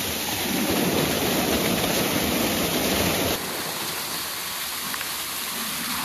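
Rushing water of a small rocky waterfall pouring and splashing over a person sitting in its flow, a steady loud rush; the sound shifts slightly a little past halfway.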